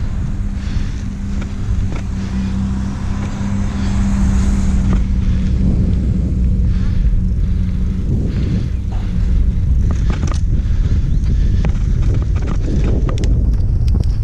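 Wind buffeting an action camera's microphone on a moving bicycle, with the tyres rolling on asphalt and a steady hum for the first half. From about ten seconds in, the ride turns bumpier, with rattles and knocks as the bike goes onto a grass path.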